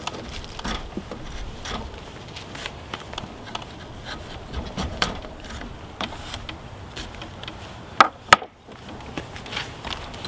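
Small draw knife shaving a maple knife handle clamped in a bench vise: irregular short scraping cuts, with two sharp knocks close together about eight seconds in.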